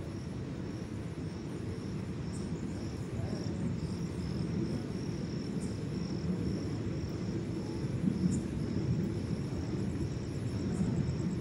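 Low rumble of an express train's coach running as it pulls out of a station, slowly growing louder as it gathers speed, with crickets chirping outside in a steady pulse of about two chirps a second.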